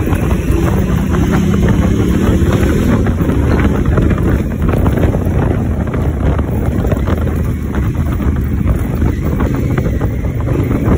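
Honda Africa Twin's parallel-twin engine running steadily as the motorcycle rides along, mixed with heavy wind buffeting on the microphone.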